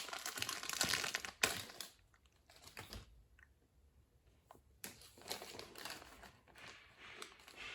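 Plastic toy packaging crinkling and rustling as a doll figure is worked out of its box by hand, in two spells with a quieter pause and a few small clicks between.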